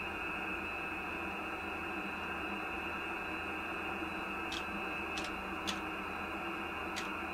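Icom IC-756PRO III transceiver's speaker giving steady hiss and static from the 17-metre band on single sideband, with no station being heard. A few faint clicks in the second half.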